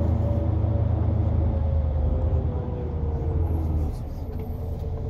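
Tour bus engine and road rumble heard from inside the cabin, with a faint whine that slowly falls in pitch; the rumble eases off about four seconds in.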